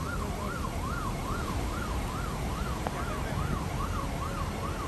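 Fire engine siren wailing rapidly up and down, a little over two sweeps a second, over a steady low rumble.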